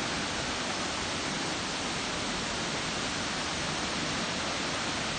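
Steady rush of a stream's white water tumbling over rocks, an even noise at a constant level.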